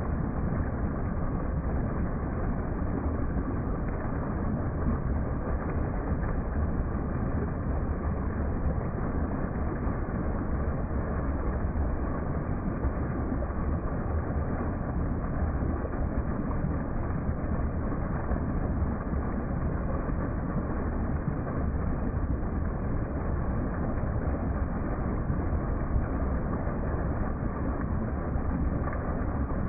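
Small waterfall pouring over rock into a pool: a steady, unbroken rush of falling and splashing water.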